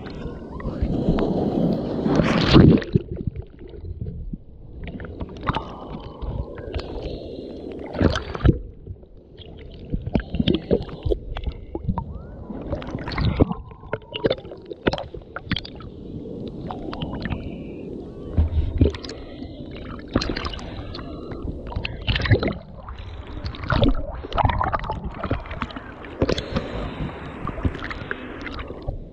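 Small sea waves sloshing and gurgling against a camera held at the water surface, going muffled when it dips under, with many irregular sharp splashes and knocks.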